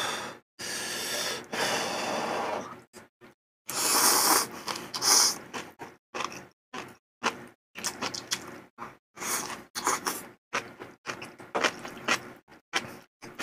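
Malatang noodles being slurped in two long draws, then chewing with many short, irregular wet mouth smacks and clicks.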